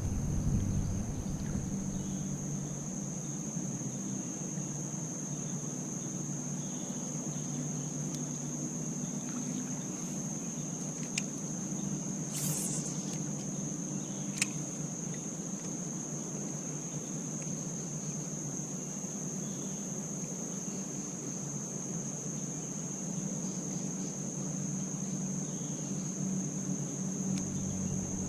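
Steady high-pitched insect chorus ringing on one unbroken note, over a low steady hum. Two short clicks and a brief hiss come about halfway through.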